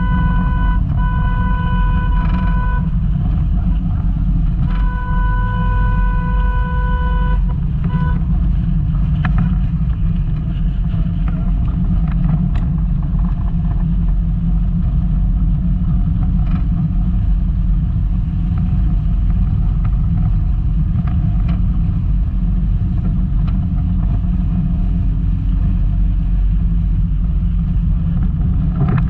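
Volkswagen Golf Mk2 driving over a rough off-road track: a heavy, steady low rumble of engine and running gear, with scattered short knocks. Over the first seven or eight seconds a steady high tone sounds in three spells, then stops.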